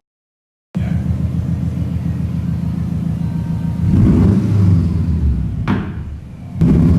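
Subaru Forester XT's turbocharged 2.5-litre flat-four running through an aftermarket large-bore exhaust with a centre silencer removed, starting after a brief silence, then getting louder twice as the throttle is opened. A single sharp click comes shortly before the second rise.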